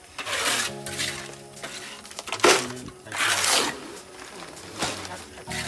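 Harsh scraping strokes, about four of them roughly a second apart, with a steady hum of several tones between the first two.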